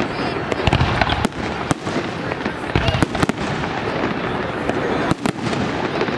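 Fireworks display: aerial shells bursting in quick succession, a constant rumble of detonations broken by sharp bangs every second or so.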